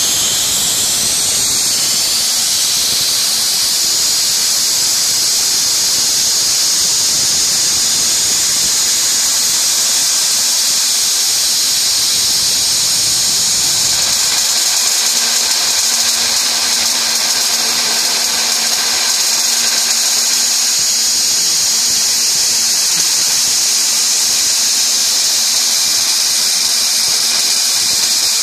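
CNC mini mill spindle running an end mill through MDF, cutting a pocket: a loud, steady high-pitched whine and hiss. A faint low hum joins about halfway through.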